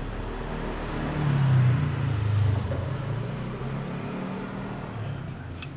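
Engine of a passing motor vehicle, swelling to its loudest between about one and two and a half seconds in and then fading. A light click near the end.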